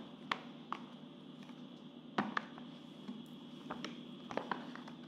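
Takeaway food packaging being handled on a table: a few light clicks and taps of plastic, the loudest a little over two seconds in, over a steady low room hum.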